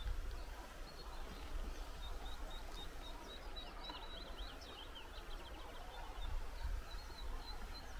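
Small birds chirping outdoors: a steady series of short, high chirps, with a brief flurry of quick falling notes about three seconds in, over a low steady rumble.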